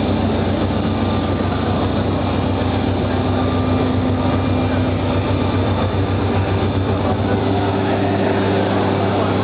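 CTcP platesetter running with a steady mechanical hum and whir, a low drone underneath; about seven seconds in the deepest rumble drops away and a slightly higher hum takes over.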